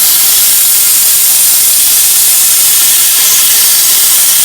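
Victor CutMaster 102 plasma cutter with a Thermacut torch cutting metal: a loud, steady hiss of the plasma arc and compressed air through the torch.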